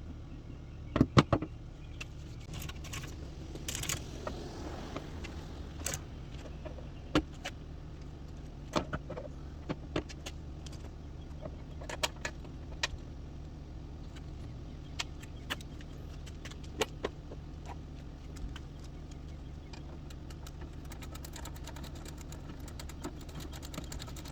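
Hand work on a minivan's sliding-door roller assembly: scattered sharp clicks and metallic clinks of parts and tools being handled, with a short scraping swish a few seconds in. A steady low hum runs underneath.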